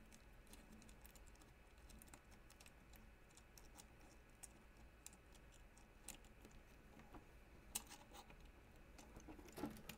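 Near silence with a few faint, scattered clicks of small metal printer parts being handled, one more distinct click a little before the eight-second mark and a small cluster near the end.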